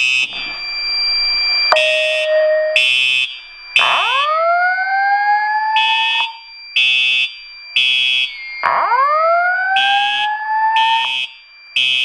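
Simplex 4901-9820 fire alarm horn sounding in a three-pulse temporal pattern, together with the Simplex voice evacuation message from a speaker. The message plays two slow rising sweep tones and some steady tones.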